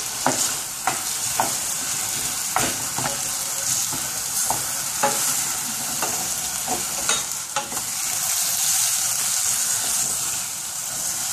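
Chicken and chopped onions frying in vegetable oil in a pot: a steady sizzle, with a utensil clicking against the pot every second or so as the pot is stirred.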